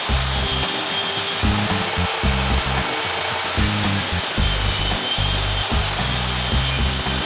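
A power tool running under load with continuous grinding and rasping noise, its motor whine dipping and rising, over background music with a steady bass beat.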